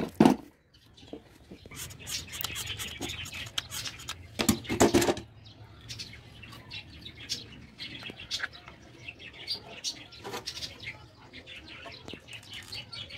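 Small birds chirping in the background, with a sharp knock at the start and a louder clatter lasting under a second about four and a half seconds in.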